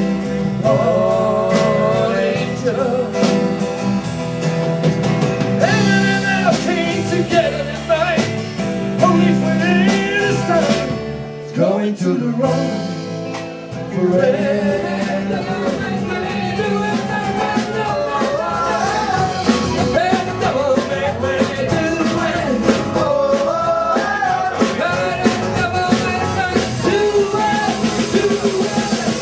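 Live rock band playing: a man singing over strummed acoustic guitar and electric guitar, with bass and drums. The low end drops out for a couple of seconds near the middle.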